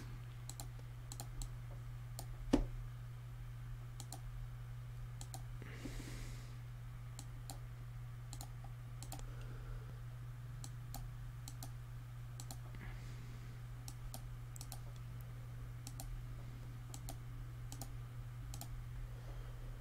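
Irregular faint clicks of a computer mouse, with one louder click a few seconds in, over a steady low hum.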